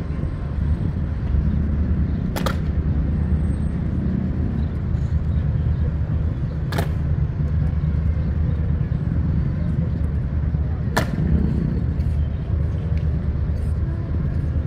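Outdoor street ambience in a city quarter: a steady low rumble, with three sharp clicks about four seconds apart.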